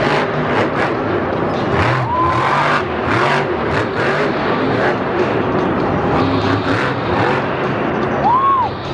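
Grave Digger monster truck's supercharged V8 engine revving hard in repeated surges, its pitch swooping up and down, as the truck wheelies and jumps.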